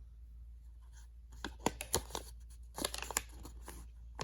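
Packaging handled by hand: a run of sharp crinkling rustles that starts about a second in and comes in two clusters.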